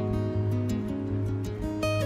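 Instrumental background music led by acoustic guitar, a gentle tune of plucked and strummed notes.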